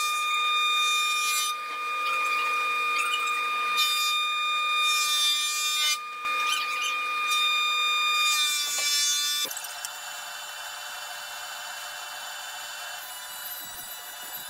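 Thickness planer running with a steady high whine, its cutter head giving bursts of harsh cutting noise as a walnut board feeds through. About nine and a half seconds in, this gives way abruptly to the quieter, steady hum of a sliding panel saw running.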